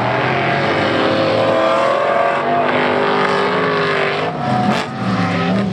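Several sedan race cars' engines revving hard at once. Their engine notes climb and drop back repeatedly as they power round the track, with a brief dip in loudness about five seconds in.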